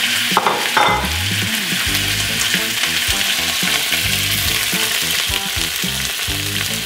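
Ground beef sizzling steadily in olive oil in a smoking-hot stainless steel pot: the loud sizzle of a pan hot enough to sear the meat.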